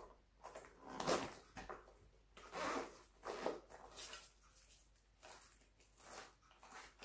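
Packaging being opened by hand: a handful of short rustling, scraping swishes of plastic and cardboard as a box of action-camera accessories is unpacked.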